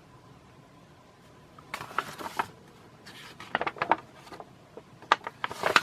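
Paper catalog pages being handled and turned: a quiet start, then a run of short crisp rustles and crackles from about two seconds in.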